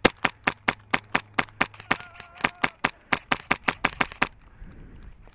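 Airsoft rifle firing a rapid string of single shots, about four to five a second, which stops about a second before the end.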